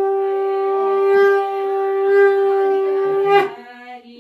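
Conch shell (shankh) blown in one long, steady note that cuts off about three and a half seconds in.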